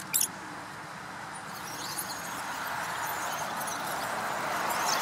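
A last few high-pitched rodent squeaks at the very start, then a steady outdoor background hiss that slowly grows louder, with a few faint bird chirps.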